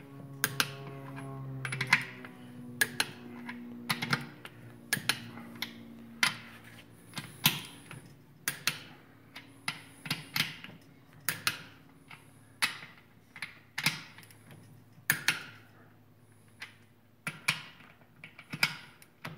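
Click-type torque wrench on the crankshaft main bearing cap bolts, giving sharp clicks about once a second as the bolts are taken up to torque.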